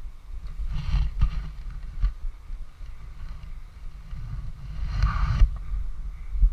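Wind and handling rumble on a body-worn action camera, with two short bursts of rustling movement, about a second in and about five seconds in.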